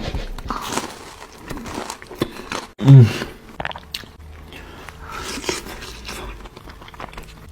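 Close-miked biting into and chewing a Wingstop hot honey fried chicken wing, with scattered crisp crunches and wet mouth sounds. A short, loud, voiced hum comes about three seconds in.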